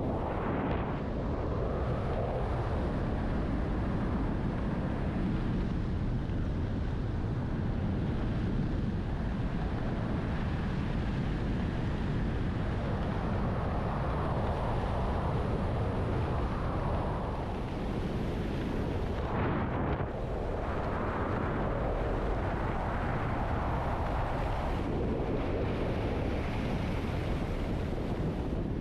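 Heavy wind buffeting the microphone: a steady, dense rushing roar with no distinct engine tone, easing briefly twice in the second half.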